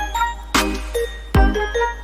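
Background music: a bell-like melody over a steady drum beat.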